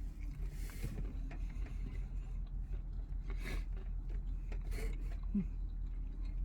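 Quiet eating sounds: chewing fried chicken tenders and handling the food, with a few short rustles. A steady low hum runs underneath.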